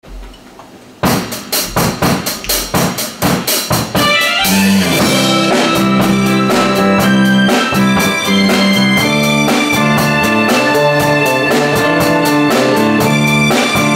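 A live rock band opens a pop song. About a second in, the drum kit plays a short run of hits on its own. At about four seconds bass, electric guitar and keyboards come in, and the full band plays the instrumental intro.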